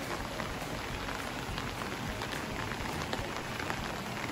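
Steady rush of rainwater running in a full roadside drain, with rain falling on wet ground. The drain water sounds like a river, and small drop ticks run through it.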